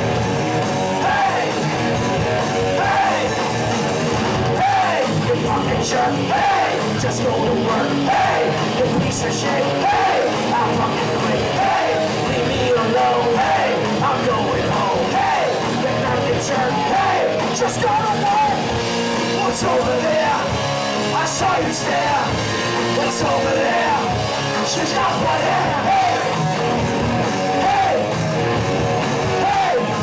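Live rock band with electric guitars and drums playing loud, with several voices singing and shouting together into microphones.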